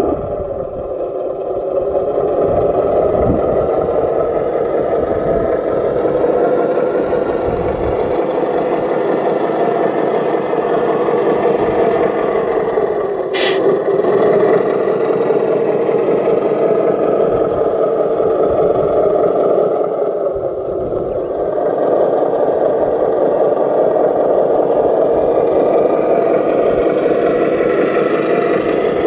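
Radio-controlled model construction vehicle running steadily, with one short sharp click about thirteen seconds in.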